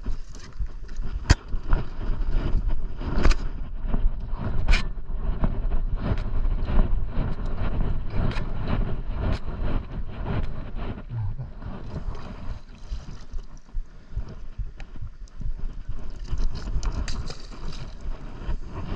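Handline being hauled in hand over hand over a boat's side: repeated knocks and rubbing of hands and line against the gunwale, with wind buffeting the microphone throughout. Near the end a hooked reef fish splashes at the surface.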